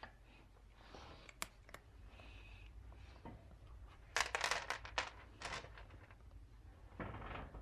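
Rustling and crinkling from something being handled, in a dense run of crackles about four seconds in and a shorter burst near the end, after a few sharp clicks.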